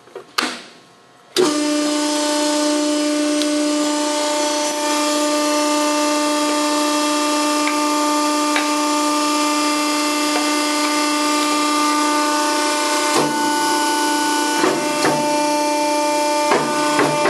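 Scotchman 65-ton hydraulic ironworker switched on: a brief click, then about a second and a half in its electric motor and hydraulic pump start and run with a steady hum. A few light knocks sound near the end.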